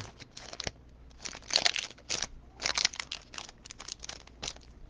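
Plastic wrapper of a pack of trading cards crinkling and tearing in irregular bursts as it is worked open with difficulty.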